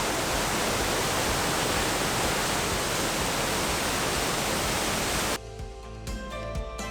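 Waterfall roaring: a steady, even rush of falling water. About five seconds in it cuts off suddenly and instrumental music takes over.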